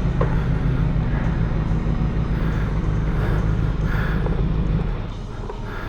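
Benelli TNT600 inline-four engine idling steadily; its sound drops away about five seconds in.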